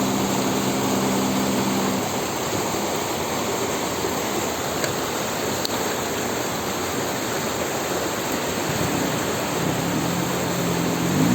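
Outboard motor driving a water-jet boat, running over a steady rush of water and wind. The engine note is clear for the first couple of seconds, sinks under the rush, then comes back about nine seconds in and starts to rise near the end.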